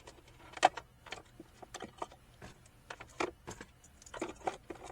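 Small loose items clicking and knocking as they are handled and put into a car's interior storage compartment, with a sharper knock just under a second in.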